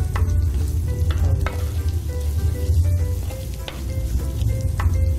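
Sliced shallots, garlic and spices sizzling in hot oil in a clay pot while being sautéed, stirred with a wooden spatula that scrapes and knocks against the pot a few times.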